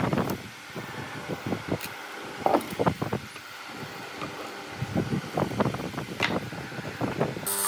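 Irregular light knocks and taps of hand tools and a timber beam being handled on a wooden workbench, over a steady background noise.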